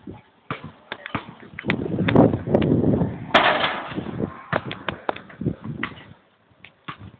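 Scattered knocks and thuds from a pickup basketball game on a concrete court: ball and sneakers. About two seconds in, a louder stretch of rustling handling noise on the camera's microphone, with a sharp click, as the camera is swung about.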